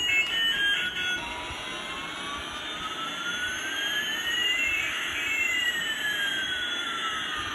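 Toy A380 airliner's electronic jet-engine sound effect from its small speaker, starting about a second in: a steady jet hiss with one whine rising in pitch while another falls, the two crossing partway through.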